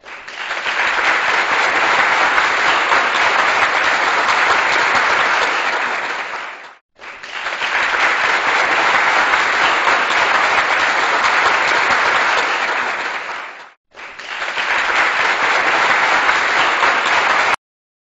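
Applause, in three stretches that each swell in and fade with brief gaps between; the last stops abruptly near the end.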